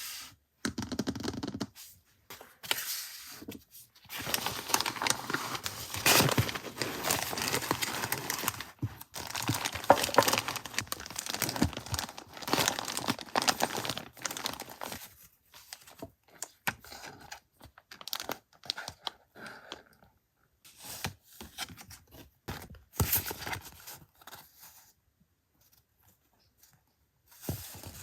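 Gift wrapping and packaging being opened by hand: crinkling and tearing in dense, irregular rustles for about ten seconds, then scattered, sparser rustles and handling sounds that die away near the end.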